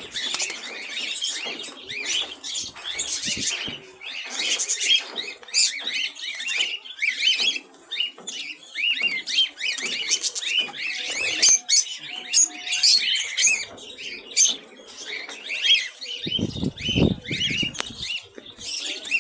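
Many small caged birds chirping and chattering at once, a dense run of short high calls throughout. A low rumble cuts in briefly near the end.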